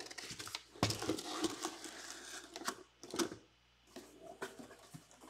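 Hands handling trading-card boxes on a table: rustling and scraping with a run of small clicks and light knocks, quieter for a moment near the end.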